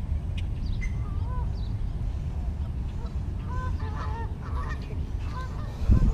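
Geese honking at a distance, a few short calls at a time, over a steady low rumble. A dull thump comes near the end.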